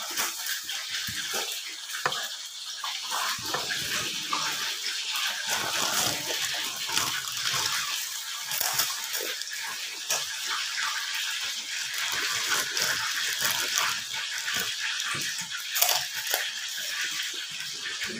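Close-miked eating sounds: wet chewing and mouth smacking, with irregular small clicks and crackles throughout.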